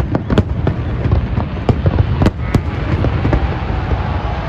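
Aerial fireworks shells bursting in quick succession: a rapid string of booms and bangs that thins out after about two and a half seconds, over a steady crackle and rumble.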